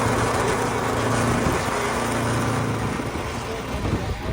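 An engine running steadily, a low hum under a broad hiss.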